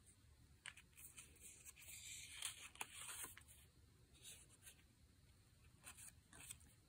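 Faint rustling and light tapping of paper and cardstock pieces being handled and shuffled by hand, busiest from about one to three and a half seconds in, with a few small clicks near the end.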